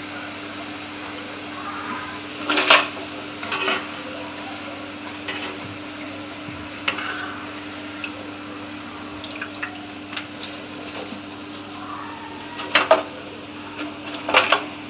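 Hot oil sizzling steadily in a steel kadai while a wire-mesh skimmer scoops out fried onion pakodas and clanks against the metal pan and bowl. The clanks come twice about three seconds in, once about seven seconds in, and a few times near the end.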